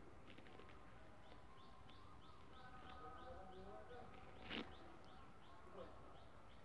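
A bird's faint high chirps, repeating steadily about three times a second over near silence. There is one soft tap about four and a half seconds in.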